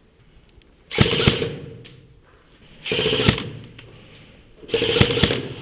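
Airsoft rifle firing three short full-auto bursts, each about half a second long and about two seconds apart, a rapid rattle over a mechanical whine.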